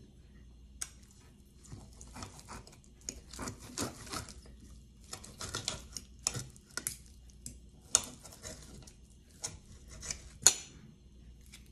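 Knife and fork cutting a bone-in beef steak on a plate: a run of short scraping strokes as the blade saws through the meat and scrapes the plate, with a sharp clink near the end.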